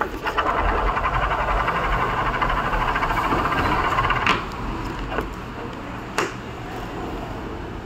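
CDX 6203-2RS sealed ball bearing spun by hand, giving a steady whirring rattle for about four seconds that stops with a click as a finger halts it. A couple of light taps follow.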